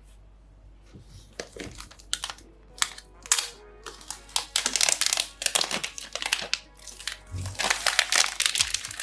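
Phone box packaging being crinkled and torn open: a run of irregular crackly rustles starting about a second and a half in, over soft background music.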